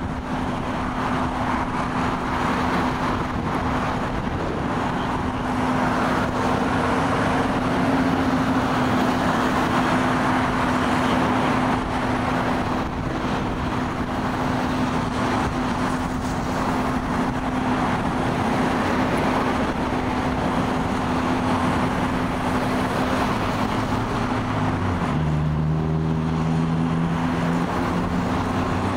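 Steady roadside vehicle noise: engine and traffic sound with a constant low hum. About 25 s in, a deeper engine note joins.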